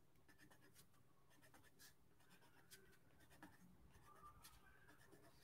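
Faint, irregular ticks and short scratches of a black ink pen tip dotting and making small marks on paper.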